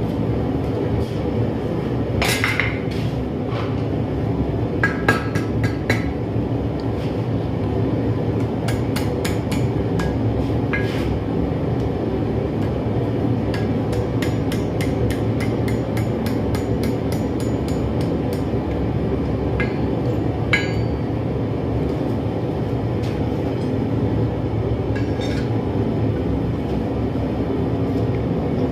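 Hammer blows on steel at the anvil, coming singly at first and then in a quicker run of about two or three strikes a second, over a steady low hum.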